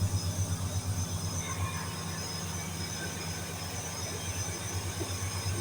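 Package air-conditioning unit running: a low, throbbing mechanical hum that steadies about two seconds in, with faint high-pitched whine above it.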